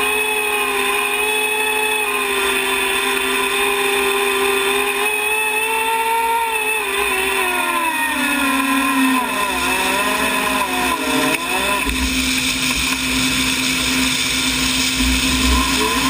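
Klimov TV3-117 helicopter turboshaft engine of a modified tractor puller running at idle with a high turbine whine. Its pitch holds steady, falls about halfway through, wavers, then starts to climb again at the very end.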